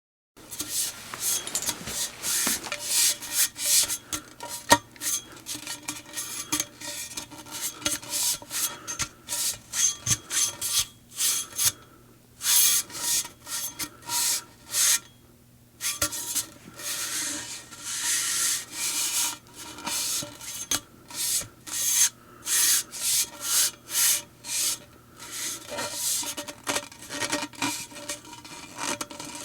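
Gas station fuel pump handled by hand, metal rubbing and scraping in many short, irregular strokes, with a couple of brief pauses.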